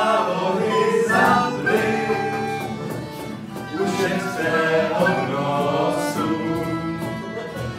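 A small amateur group playing a song together on strummed guitars, a violin and a recorder, on the chords D major, G major and E minor.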